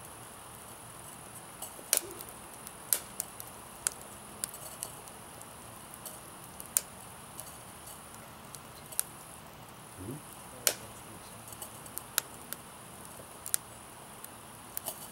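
Small twig fire in a pipe rocket stove crackling: irregular sharp pops and snaps, about one every second, over a steady high hiss.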